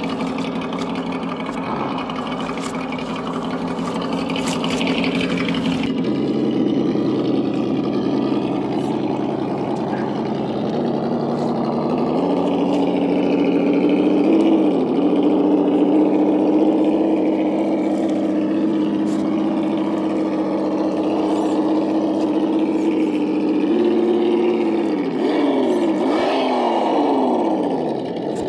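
Simulated engine sound from an RC crawler's electronic sound kit, played through its small onboard speaker: a steady idling drone that rises a little in pitch about halfway through and holds, then drops away in several sweeping rev-down glides near the end. Faint ticking sits over it in the first few seconds.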